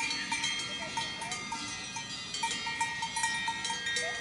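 Cowbells on grazing cows ringing irregularly, several bells of different pitches clanking over one another.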